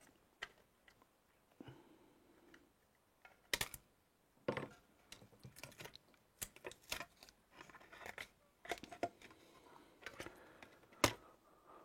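Scattered small clicks, taps and light scrapes of hands handling a partly dismantled plastic sat-nav, with the sharpest click near the end.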